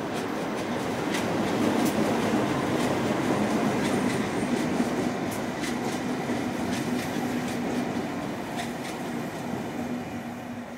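A short consist of diesel locomotives passing close by: a steady engine hum over the noise of running wheels, with sharp clicks from the wheels on the rails, loudest in the first half and dying away near the end as the last unit goes by.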